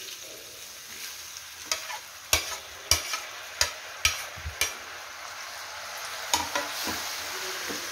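Boiled noodles being pushed off a ceramic plate with a metal spoon into a hot kadai of fried vegetables: the oil sizzles steadily while the spoon clicks sharply against the plate and pan about seven times.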